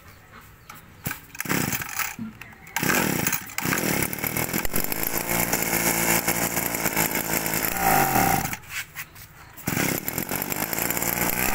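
Ryobi two-stroke brush cutter engine (30 mm bore) being pull-started: a couple of quick cord pulls, then it catches and runs with a buzzy two-stroke note. Near eight seconds the revs fall away and it goes quiet, then it runs again for the last couple of seconds before the revs drop once more.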